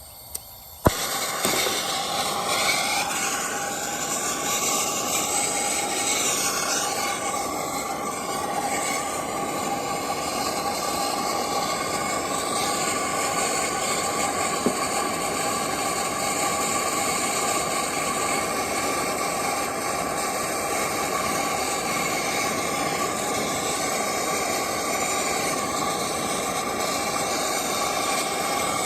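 Brazing torch lit with a click about a second in, then its flame hissing steadily while the TXV line on the air handler coil is brazed.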